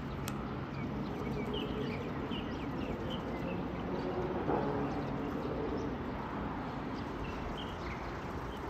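Steady rumble of road traffic and a distant commuter train passing, with small birds chirping repeatedly over it.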